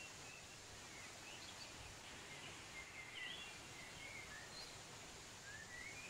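Faint, steady rush of a waterfall, with small birds chirping over it in short, scattered calls that slide up and down in pitch.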